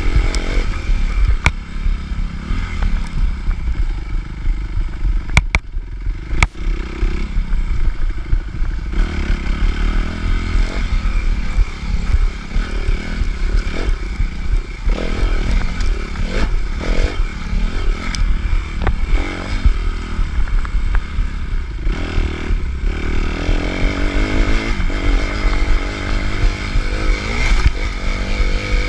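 Suzuki RM-Z 250 four-stroke single-cylinder dirt bike engine, heard close up from on board, revving up and down as it is ridden hard through a race lap, with clattering from the bike and a few sharp knocks in the first several seconds.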